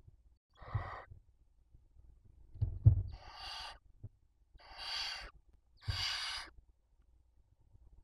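Barn owls giving four harsh, hissing screech calls, each lasting half a second to nearly a second. A sharp thump comes just before the second call, the loudest sound here, with a few lighter knocks of movement in the wooden nest box.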